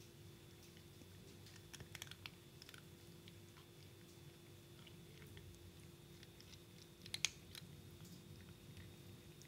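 Cats crunching dry kibble: faint, scattered sharp crunches, a cluster about two seconds in and the loudest a little after seven seconds, over a faint steady hum.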